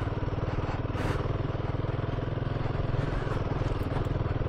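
Royal Enfield Himalayan 450's single-cylinder engine running at a steady pitch under way, with a short rush of noise about a second in.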